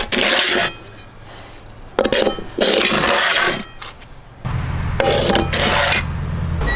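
Metal baking pans scraping and clinking as they are slid across the stone floor of a wood-fired brick oven, three scrapes in all.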